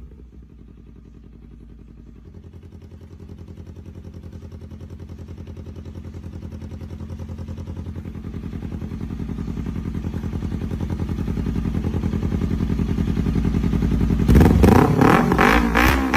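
Kawasaki ZX-10R sportbike's inline-four engine running with a fast, even pulse, growing steadily louder. About fourteen seconds in, a much louder, sharper burst cuts in.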